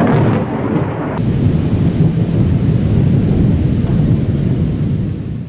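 Thunderstorm: a continuous low rumble of thunder over steady rain. The brighter hiss on top drops away sharply about a second in.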